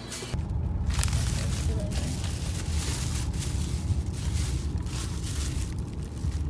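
Plastic carrier bag rustling as it is pulled open around a salad container, over a steady low rumble that starts about a third of a second in.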